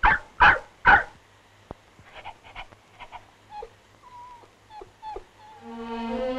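A dog barks three times in quick succession, then gives a string of short, soft whimpers and whines. Background music comes in near the end.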